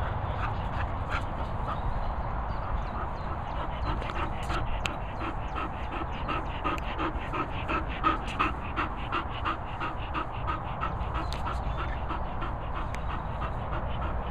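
A dog panting quickly and rhythmically, about three to four breaths a second, close to the microphone. The panting dies away near the end.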